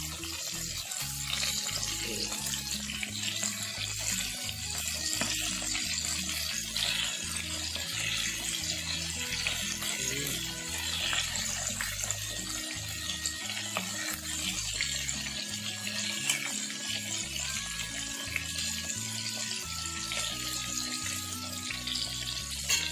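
Flour-coated sardines shallow-frying in hot oil over low heat: a steady, even sizzle. Soft background music plays under it.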